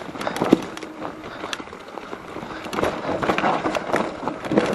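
Mountain bike rolling downhill over a rough, wet, leaf-covered trail: tyres on wet leaves and dirt with the bike rattling and scattered sharp knocks.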